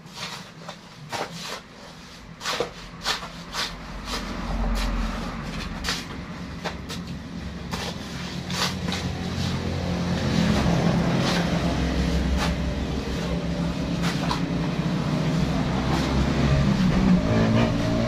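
Shovel blade scraping and striking soil with sharp clicks during the first few seconds, then a motor vehicle engine running close by, growing louder and staying steady as the loudest sound.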